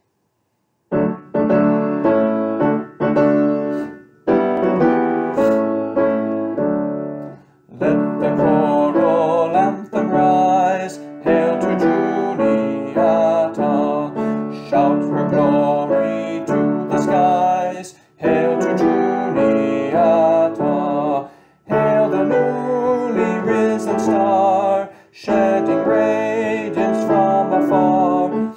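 Piano playing a four-part college hymn tune in full chords, phrase by phrase with brief breaks between phrases.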